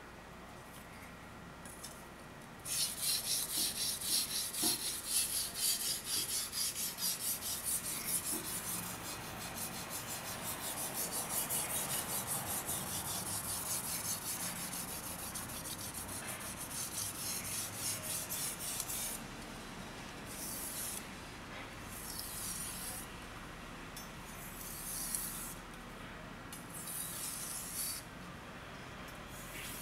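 Steel kitchen knife blade scraping back and forth on a wet Okudo suita natural Japanese whetstone during hand sharpening. The quick, even strokes begin about three seconds in; past the middle they turn slower and separate, with short pauses between them.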